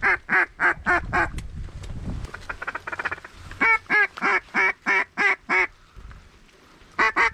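Hunter's mallard duck call blown in runs of hen quacks, about three a second, with a quick run of short feed-chatter notes in between; after a brief pause the quacking starts again near the end.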